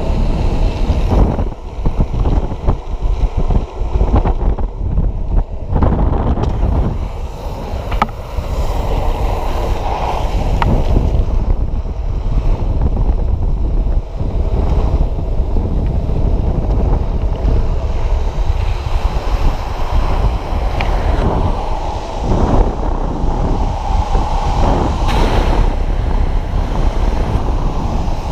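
Heavy wind buffeting the microphone over the steady rumble of longboard wheels rolling fast on asphalt, loud throughout and rising and falling with the gusts.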